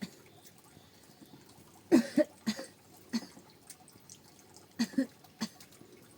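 Water dripping and splashing in short, irregular plops, about seven in all, bunched around two seconds in and again near five seconds.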